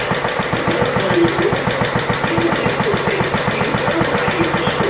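John Deere LT155's 15 hp Kohler Command single-cylinder engine running with a fast, even firing beat, brought back to life after three years of sitting unused.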